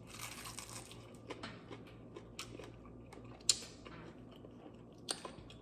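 Faint close-miked chewing of fried chicken: soft wet mouth noises with a few sharp clicks, the loudest about three and a half seconds in.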